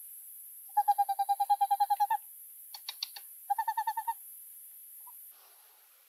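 A bird calling: a fast run of about a dozen identical hooting notes at a steady pitch, then after a pause a shorter run of about seven more. A few light clicks fall between the two runs.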